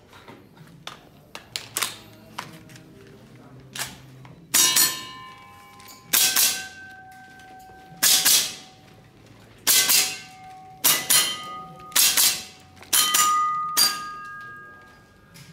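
Tokyo Marui MWS MK18 gas-blowback airsoft rifle firing a string of sharp shots, singly and in quick pairs, starting about four and a half seconds in, with steel targets ringing after the hits. Light clicks and gear rattle in the first few seconds.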